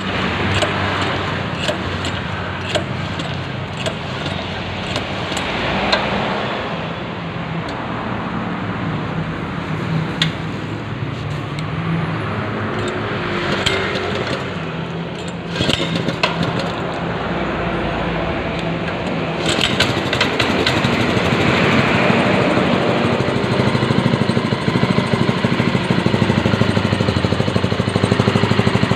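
Small petrol engine of a portable water pump running. About 19 seconds in it gets louder, with an even, rapid pulsing.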